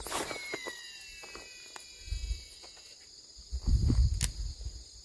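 A fishing rod swished through a cast, then the spool of a baitcasting reel whining as line pays out, its pitch falling as the spool slows over about three seconds. Insects chirp steadily throughout, with a sharp click a little after four seconds.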